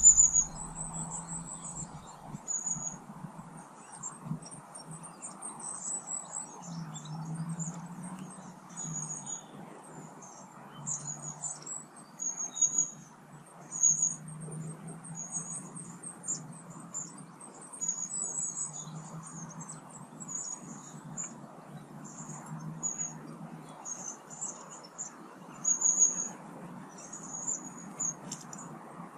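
Small garden birds calling with many short, very high, thin chirps, over a faint low hum.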